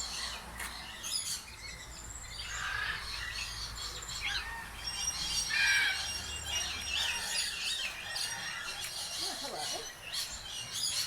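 Many aviary birds chirping and squawking, with short high-pitched calls overlapping one another and no single bird standing out.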